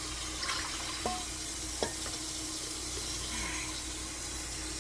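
Water running steadily from a tap, with two light clicks about one and two seconds in.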